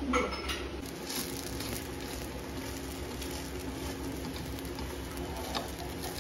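A dosa cooking on a flat griddle (tawa) over a gas flame: a steady low sizzle, with a couple of light scrapes of a metal spatula against the griddle.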